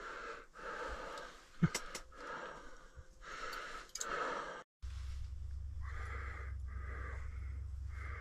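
A man's heavy breathing and sniffing, a noisy breath every second or so, from an angler sick with a fever. There is one sharp click about two seconds in, and after a short break a steady low hum sits under the breathing.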